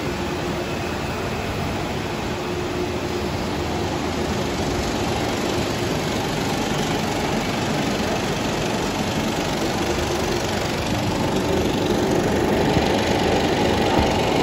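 Film projectors and the film platter in a cinema projection booth running steadily. The sound grows a little louder about eleven seconds in, as the camera nears the projector.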